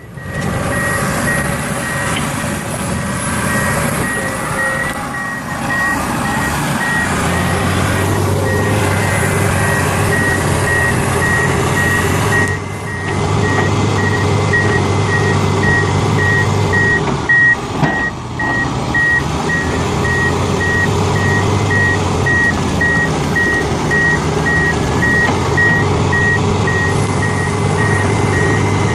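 Reversing alarm on heavy construction machinery beeping steadily, about two beeps a second, over the machine's running engine.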